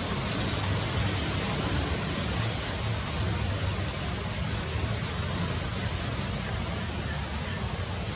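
Steady outdoor rushing noise with a low wind rumble on the microphone, and faint, high bird chirps repeating about once a second in the second half.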